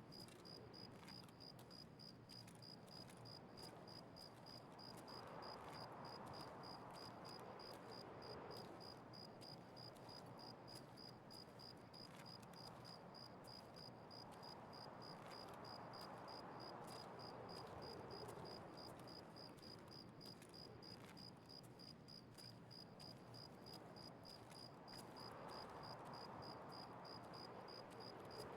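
Faint, steady chirping of a cricket, a quick even pulse on one high note, over a soft background hush that swells and fades every several seconds.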